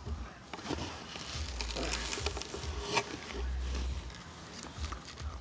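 Handling noise on a phone's microphone as it is moved about: low rumbling thumps and rubbing with scattered crackles, and one sharp click about three seconds in.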